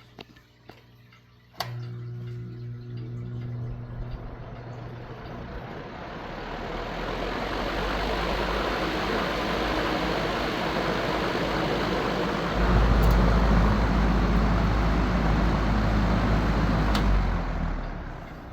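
Vintage Country Aire box fan with a Westinghouse motor switched on with a sharp click: the motor hums and the rush of air builds as the blades spin up, then steps up louder about twelve seconds in. After another click near the end the sound fades as the fan winds down.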